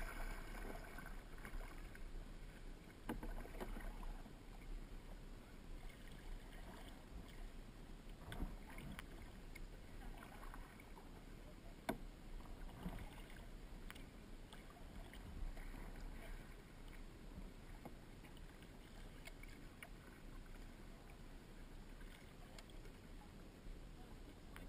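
Kayak paddling: paddle blades dipping and splashing in the water, fairly quiet and uneven, with a few sharp knocks.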